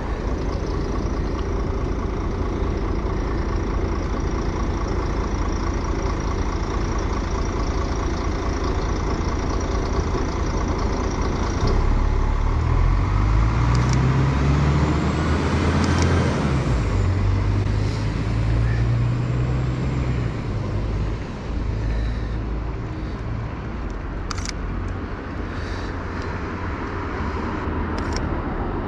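Street traffic noise with a city bus's engine coming up close about halfway through, getting louder and rising and falling in pitch as it passes, then easing back to the steady rumble of traffic.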